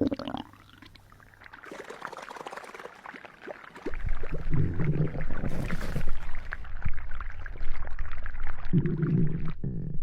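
Stomach gurgling and rumbling sound effect: faint wet crackling at first, then from about four seconds in a loud low rumble thick with gurgles, cutting off sharply near the end.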